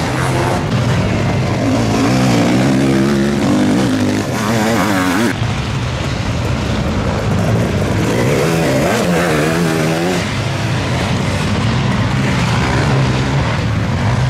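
Sidecarcross racing outfits' motorcycle engines running hard on the track, their pitch repeatedly rising and falling as the riders open and close the throttle, with more than one engine heard at once.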